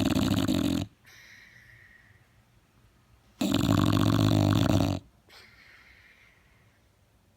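English bulldog snoring loudly: two long snores about three and a half seconds apart, each followed by a faint breath out.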